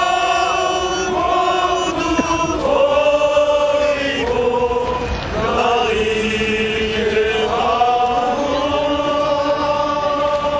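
A crowd of marchers singing together in unison: a slow melody with long held notes.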